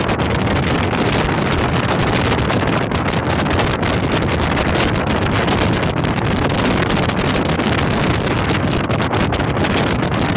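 Steady wind rushing over the microphone at the bow of a speedboat under way, with the boat's running noise beneath.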